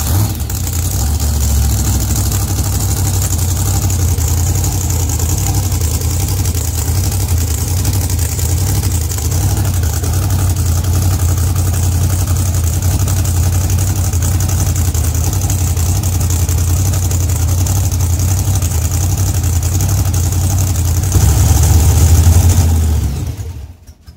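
Monster truck's supercharged V8 running at a steady idle just after starting. It gets louder near the end and then is shut off. The truck is being run to test its freshly replaced steering pump.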